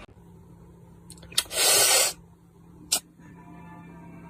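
A click, then a short burst of hissing about half a second long, and another sharp click a second later.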